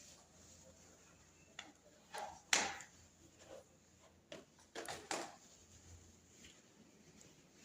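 A few scattered knocks and clatters, like things being handled, with quiet room tone between them; the loudest comes about two and a half seconds in, and a quick cluster follows near the five-second mark.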